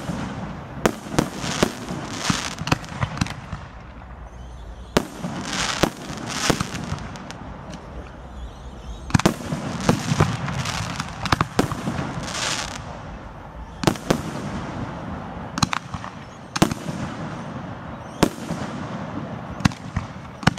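Fireworks display: aerial shells bursting in an irregular run of sharp bangs, about one a second, several of them followed by a brief crackling hiss.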